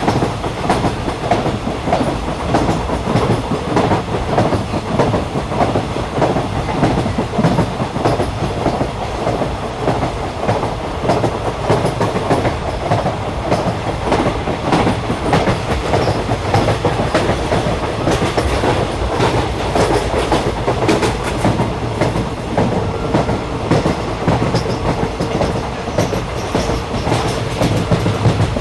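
Train running along the track: a steady, loud rumble with a fast, uneven clatter of the wheels on the rails, and a faint steady hum in its second half.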